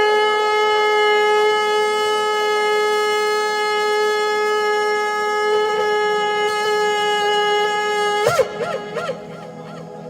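A shofar sounded in one long, steady held blast that breaks near the end into three quick wavering pitch flips and then stops.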